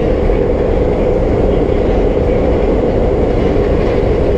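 R32 subway car running along the track, a loud steady roar of wheels and running gear.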